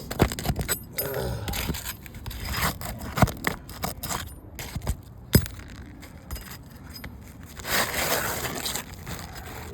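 Asphalt roof shingles being pried up with a metal roof tool: scraping and sharp clicks as the tool slides under the tabs and breaks the seal strip, with a longer scrape near the end. The shingles are creasing and losing granules (mat transfer) as they are lifted, a sign they are too brittle to repair.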